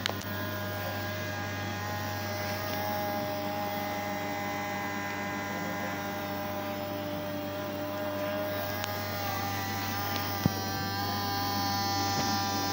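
Steady electrical hum with several steady whining tones from the powered wiring of a homemade polystyrene-foam model helicopter, with one sharp click about ten seconds in.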